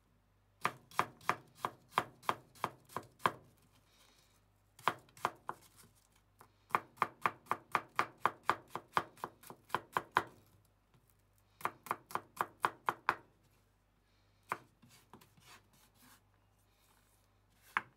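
Chef's knife mincing onion on a bamboo cutting board: quick runs of sharp chops, about four to five a second, with short pauses between the runs. A few quieter knocks and scrapes follow near the end.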